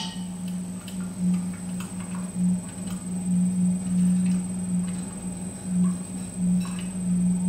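Electric pottery wheel humming steadily as it spins, with small wet clicks and squelches from slippery hands and a rib working the spinning clay.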